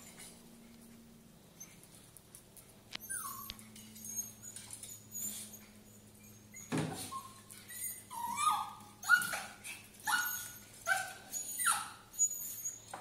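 Russian toy terrier whining and yelping, frantic to be let through a closed doorway: short high cries that fall in pitch, starting about three seconds in and coming faster and louder in the second half. A knock about seven seconds in.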